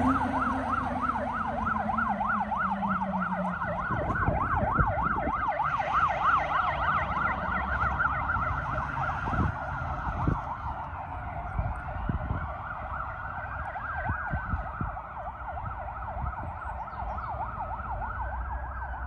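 Sirens of two fire engines on an emergency run: a fast yelp, joined later by a slower wail, both fading as the trucks drive away. In the first few seconds the diesel engine of the truck passing close by is heard, dropping in pitch and fading as it goes.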